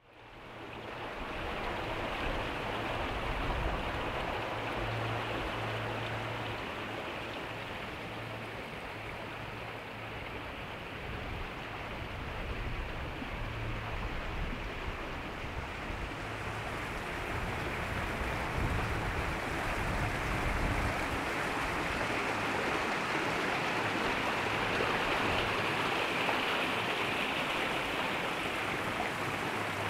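Steady rush of running water, fading in at the start and growing slowly louder, with a low uneven rumble underneath.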